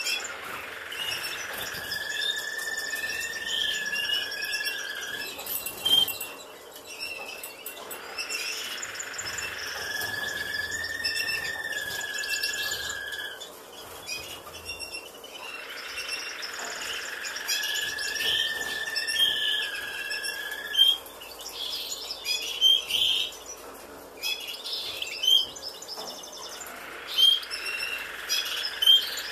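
European goldfinches in a cage chirping and twittering, with a long steady whistled note held for about three seconds, three times over. In the second half the chirps come sharper and louder.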